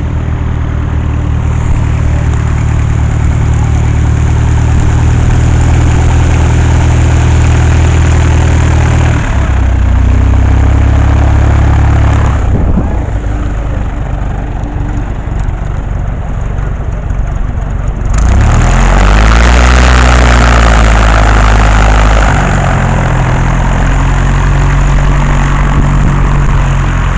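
Propeller-driven piston aircraft engine running close by, changing speed several times, with a rise and fall in pitch about two-thirds of the way through.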